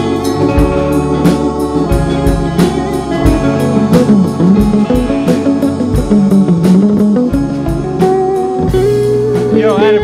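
Live blues-rock band playing an instrumental passage: electric guitar lead line with bent notes over drum kit and electric bass, ending on a held note with vibrato.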